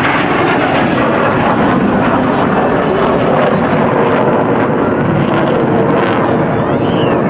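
Steady jet roar from the Thunderbirds' F-16 Fighting Falcons as the four jets climb vertically and split apart overhead. A falling whine comes in near the end.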